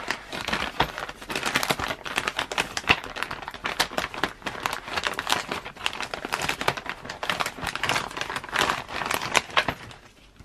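Plastic mailer bag crinkling and crackling as hands handle it and work it open, a dense run of small crackles that dies away near the end.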